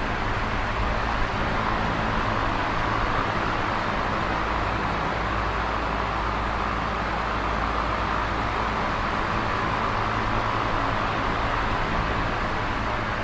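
Electric fan running steadily: an even whooshing noise with a low motor hum beneath it.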